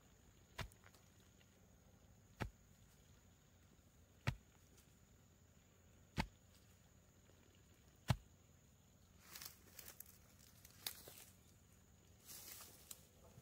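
Five dull thuds, evenly spaced about two seconds apart, as a wooden stake is pounded into the ground with a heavy pole. After the last thud comes scattered rustling and crackling in dry bamboo litter.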